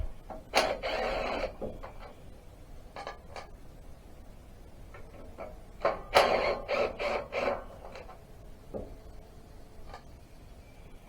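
Hand-tool work on metal engine parts: two bursts of scraping and clattering, about half a second in and again around six seconds in, with scattered light clicks between.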